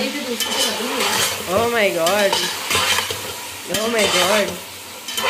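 Chicken pieces with chopped tomatoes and green chillies sizzling in hot oil in a non-stick pot while a slotted spatula stirs and turns them.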